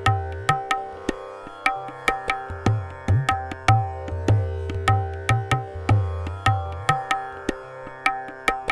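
Tabla playing the Addha taal theka, a 16-beat cycle at about 150 beats a minute, over a steady tanpura drone tuned to C. Deep ringing bass strokes of the bayan sound under the crisp strokes of the dayan.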